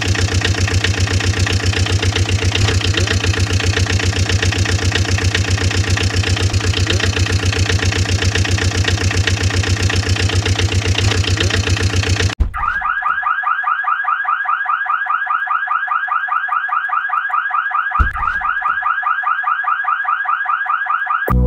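Engine sound effect: a steady, rapidly pulsing motor drone. About twelve seconds in it cuts off suddenly and a higher, rapidly repeating warbling electronic tone takes over, with a single low thump a few seconds later.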